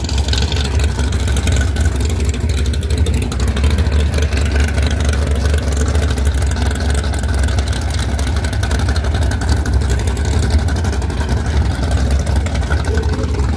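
A drag-racing pickup's engine idling at the starting line: a loud, steady, low rumble with a fast, even pulse that neither revs up nor launches.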